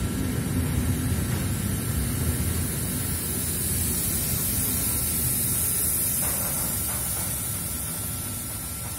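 Intermodal freight train's wagons, carrying semi-trailers, rolling past: a steady rumble of wheels on the rails with a bright hiss above it, slowly fading over the last few seconds as the end of the train draws away.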